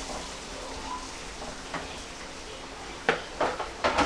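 Onions and tomatoes simmering in oil and water in a frying pan, with a steady low hiss, stirred with a spatula. Three or four sharp knocks of the spatula against the pan come near the end.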